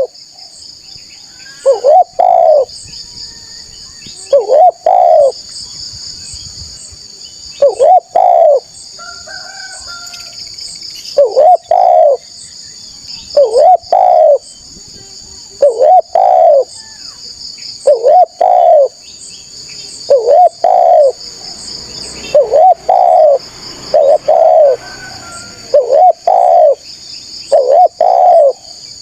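Spotted dove (tekukur) cooing over and over, a short phrase of two or three rising-and-falling coos about every two to three seconds. Under it runs a steady, pulsing high-pitched insect buzz.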